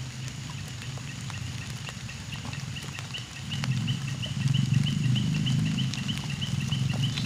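A rapid, steady series of short high chirps, about three or four a second, from an animal calling, over a low rumble that grows louder about halfway through.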